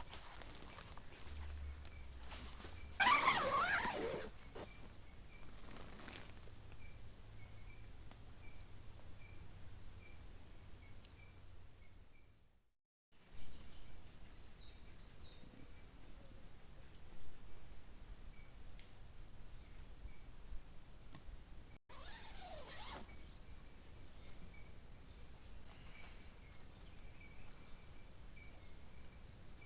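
Night insects, crickets or similar, calling steadily: a continuous high trill with a chirp repeating about once a second. A short rustling noise comes about three seconds in and a smaller one near the end. The sound drops out abruptly twice.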